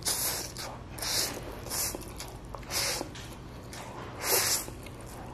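Instant fried noodles (Indomie goreng) being slurped off a fork into the mouth: about five short sucking slurps a second or so apart, with chewing between them.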